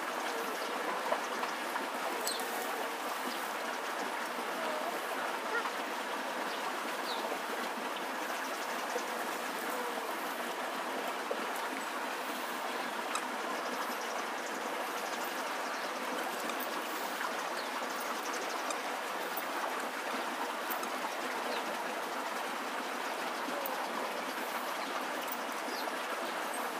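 Steady rushing outdoor noise at an even level, with a few faint short high chirps now and then.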